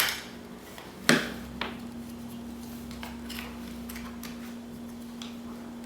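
Sharp clicks and small metal and plastic taps as a small screw is driven into a motion sensor's mounting plate, the loudest two at the start and about a second in. A steady low hum starts with the second click.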